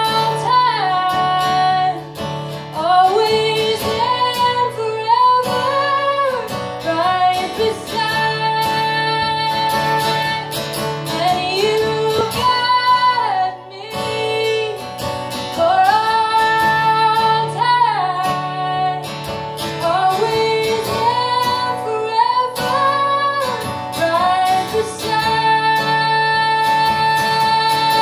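A woman singing live, her voice gliding up into long held notes, with her own acoustic guitar accompaniment.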